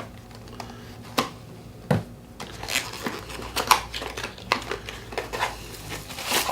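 Packaging being handled and opened: irregular crinkles of plastic with scattered sharp clicks and knocks.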